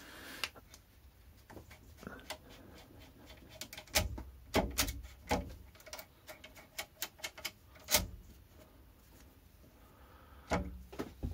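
Scattered metallic clicks and knocks as the lathe's slides and fittings are worked by hand to back the cutter out of the work. A cluster of sharper knocks comes around four to five seconds in, and one more near eight seconds.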